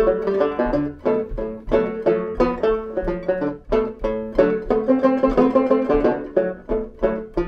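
Cello banjo played solo: an improvised blues in D major, a quick run of plucked notes and double-stops ringing out in a loose, funky rhythm.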